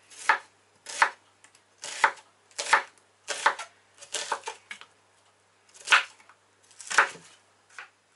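Kitchen knife slicing a red onion into half rings on a wooden cutting board: about ten separate cuts, roughly one a second, with a short pause about halfway through.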